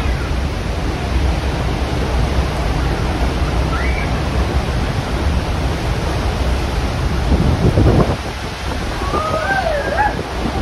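Steady roar of Niagara Falls' plunging water and churning spray, with wind buffeting the microphone and a brief stronger gust about eight seconds in. Short, faint passenger cries come through about four seconds in and near the end.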